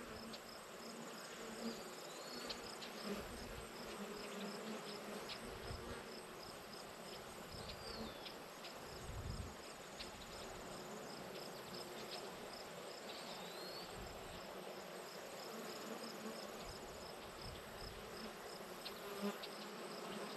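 Summer field insects: bees buzzing over a constant insect hum, with a steady high chirp pulsing about twice a second. A few short chirps that slide in pitch come and go.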